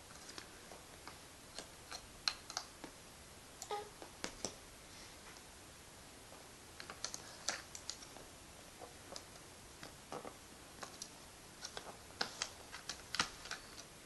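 Scattered light plastic clicks and taps from a toy truck and a computer mouse being handled, irregular and fairly soft.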